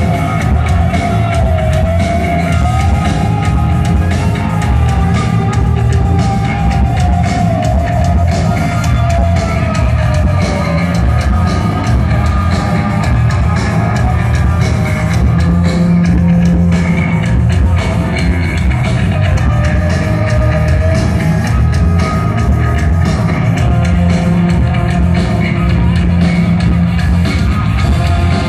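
Hard rock band playing live through an arena PA, with electric guitars, bass and drum kit, as heard from the audience. A melody line slides and bends in pitch over roughly the first ten seconds.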